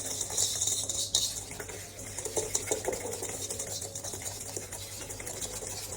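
Egg yolks and sugar being whisked by hand in a bowl: a rapid, steady clicking and scraping of the whisk against the bowl as the mixture is beaten smooth.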